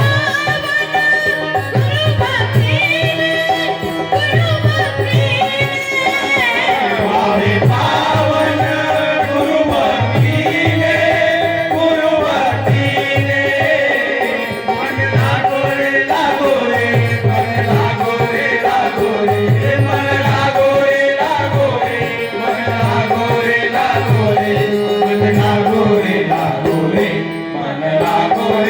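Marathi devotional bhajan music: a dholak keeping a steady beat under a harmonium melody, with no sung words.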